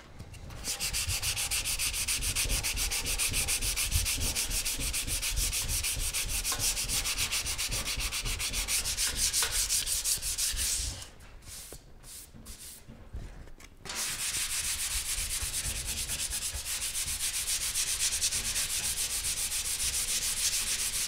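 Hand sanding of guide-coated primer on a car body panel with a loose sheet of sandpaper, in quick back-and-forth strokes. The sanding stops for about three seconds near the middle, then starts again.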